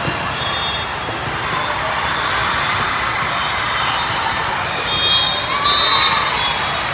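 Volleyball hall noise: scattered ball hits and bounces over a steady murmur of voices and play in a large, echoing hall, with a few short high-pitched tones about five to six seconds in.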